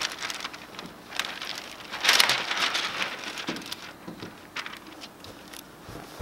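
Wet window tint film crinkling and rustling as it is handled and laid back onto the soapy rear glass, with scattered small clicks and one louder swish about two seconds in.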